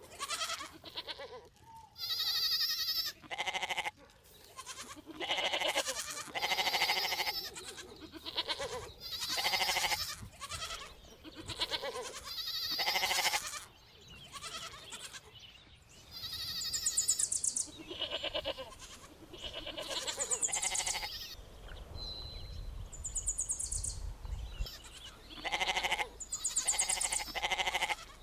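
Baby goats bleating over and over, about a dozen calls, each lasting up to about a second and a half, with a lull of a few seconds near the end.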